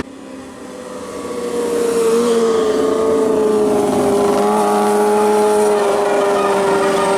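Tour bus's basuri musical air horn sounding one long held note that sags slightly lower in pitch, swelling up over the first two seconds and then holding loud.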